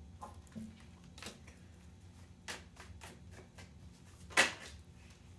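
Tarot cards being handled and laid out: a run of soft clicks and paper rustles, with one louder snap about four and a half seconds in.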